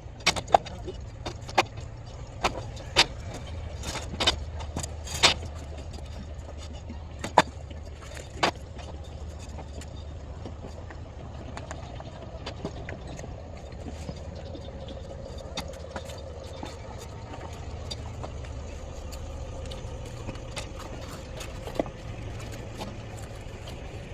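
Sharp knocks and taps, frequent in the first several seconds and only occasional after that, over a steady low rumble.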